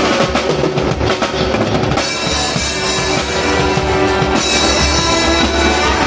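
Live band music led by a drum kit played with sticks, kick and snare beating steadily under held notes from a brass section.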